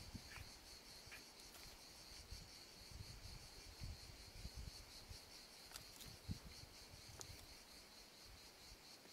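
Faint, steady chirring of insects, a high pulsing drone, with a few soft low thumps.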